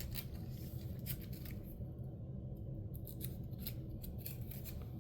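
Soft plastic crinkling and small clicks as a trading card is worked into a plastic card sleeve, in short scattered bursts.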